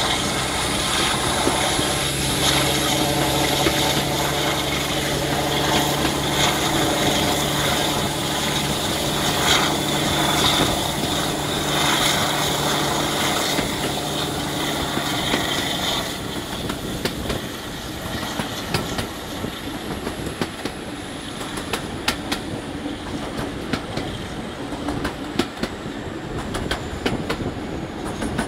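Class 52 'Western' diesel-hydraulic locomotive D1015 at speed, its twin Maybach engines running steadily with a high whine that slowly rises and falls, over wheel noise and wind. About sixteen seconds in the engine note drops away, leaving the clickety-clack of the wheels over rail joints.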